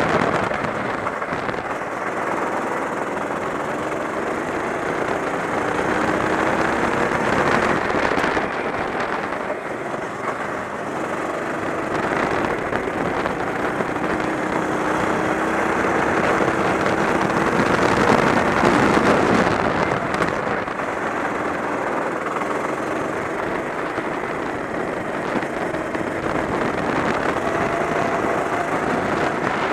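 Go-kart's 390 cc four-stroke engine running at racing speed, its pitch rising and falling as it accelerates out of the corners and lifts into them, over a steady rushing noise.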